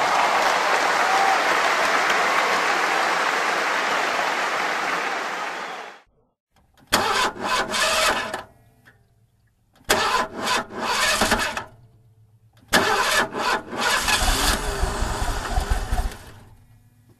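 Car engine sound effects: a loud steady rushing noise for about six seconds that stops abruptly, then three separate bursts of an engine starting and revving, the last one the longest.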